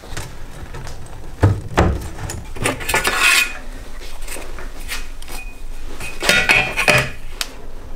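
Workshop handling noise from an aluminium radiator, a plastic fan and a length of aluminium L-section trim on a wooden workbench: a run of knocks and light metallic clinks, with two heavier thumps about a second and a half in and brief ringing clinks from the aluminium bar.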